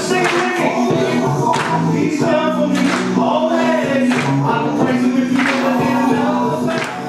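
Live gospel worship music: singing voices over a band, with held notes and a strong beat about every second and a half.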